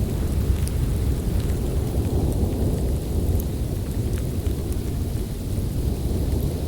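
Snowstorm ambience: a steady, deep rush of blizzard wind with a few faint, scattered ticks.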